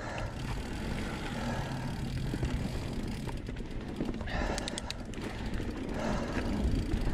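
2019 Santa Cruz Blur C S mountain bike rolling downhill over a dirt singletrack: a steady low rumble of knobby tyres on dirt and the bike rattling over bumps. A short run of high ticks comes about four and a half seconds in.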